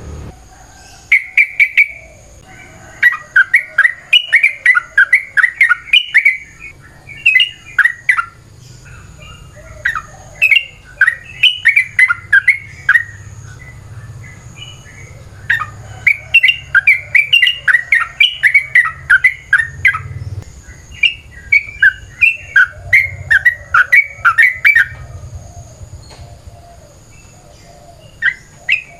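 Yellow-vented bulbul (trucukan) singing loud, long chattering phrases: runs of quick bubbly notes lasting several seconds each, broken by short pauses.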